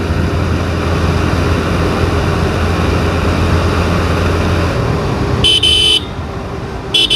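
Motorcycle engine running and wind rushing past while riding at speed, the engine hum dropping away about four and a half seconds in as the bike eases off. Short high-pitched horn beeps sound twice near the end.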